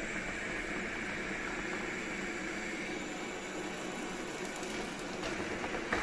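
Roborock robot vacuum cleaner running, its suction fan and brushes giving a steady whirring hum as it cleans along the edge of a stepped wooden ramp. A few light knocks near the end as it meets the edge.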